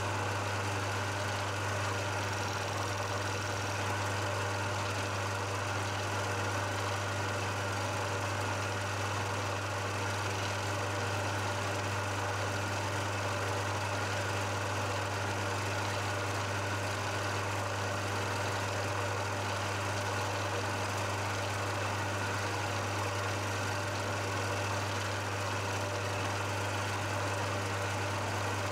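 Milling machine running with a steady hum, its spindle turning a boring head that cuts a clearance scallop into the face of a metal block.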